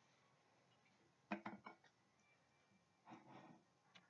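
Mostly quiet, with a few faint knife clicks about a third of the way in and a soft scrape near the end: a black ceramic chef's knife slicing cucumber on a cutting board.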